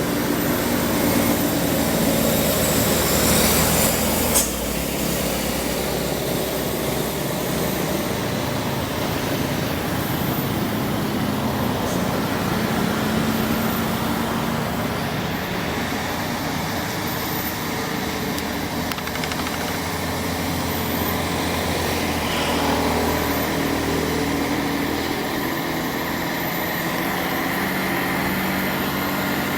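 Heavy truck's diesel engine pulling hard at a steady low pitch on a steep uphill grade. There is one short, sharp loud sound about four seconds in.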